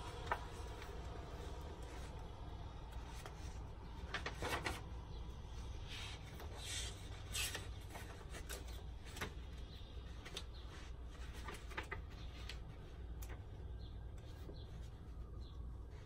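Paper rustling and book pages being turned by hand, a scatter of short rustles and soft taps, busiest in the first half, over a steady hiss of rain.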